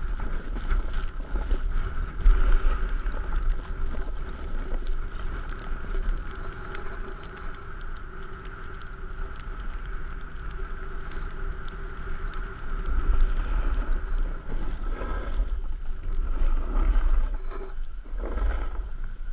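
Wind buffeting the microphone of a camera worn by a rider being towed over snow, with low rumbling gusts, over a steady hiss of the rider sliding over packed snow. It grows louder for a few seconds in the last third.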